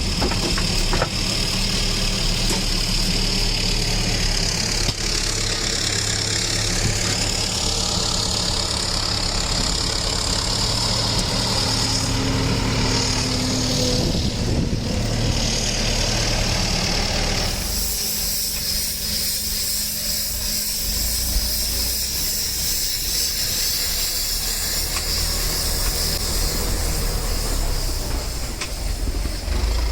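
Farm tractor engine running steadily with field machinery, the sound changing in character about two-thirds of the way through.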